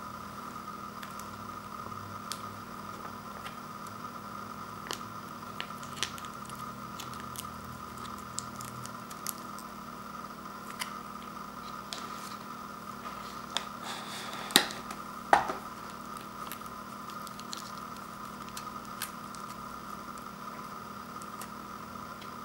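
Plastic sauce and seasoning packets being squeezed and handled over an instant noodle bowl: scattered soft crinkles and small clicks, with two sharper clicks about two-thirds of the way through, over a steady hum.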